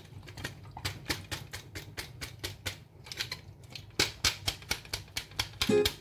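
Quick irregular clicks and taps of a Dyson cordless vacuum's clear plastic bin being handled and rinsed in a stainless steel sink, a few a second, loudest about four seconds in. A plucked guitar comes in at the very end.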